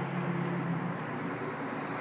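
Steady low engine hum of a motor vehicle over urban background noise.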